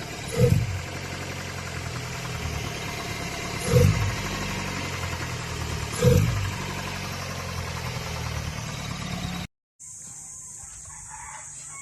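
Old Toyota Corolla engine running at idle, briefly revved three times about three seconds apart; the engine is said to knock when it runs hot and is due for a general overhaul. About 9.5 seconds in the engine sound cuts off abruptly, leaving a quieter steady hiss.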